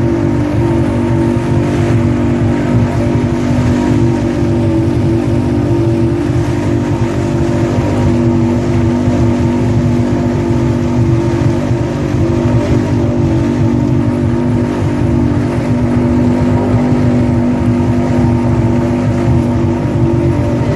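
An engine running steadily at a constant speed, with a steady hum and no revving.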